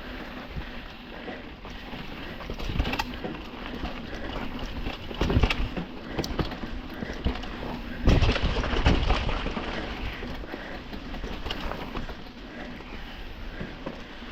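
Mountain bike rattling and jolting down a rough dirt trail, with wind rushing over the microphone and tyres crunching, and heavier knocks about five and eight seconds in as it hits bumps.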